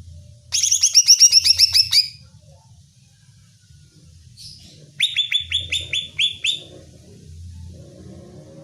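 Cucak ijo (green leafbird) calling in two bursts of rapid, repeated down-slurred chirps, each burst about a second and a half long. A faint low hum runs underneath.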